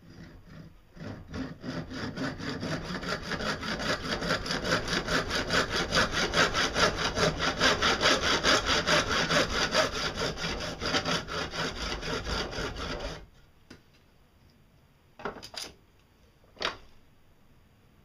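Hand saw cutting through a small PVC pipe clamped in a vise, with rapid, even back-and-forth strokes that build up over the first couple of seconds and stop suddenly about 13 seconds in. A few short knocks follow near the end.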